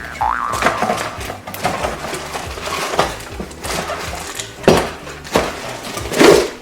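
Irregular knocks, clinks and rustles of a stainless-steel stovetop espresso maker being worked out of its packaging, over soft background music.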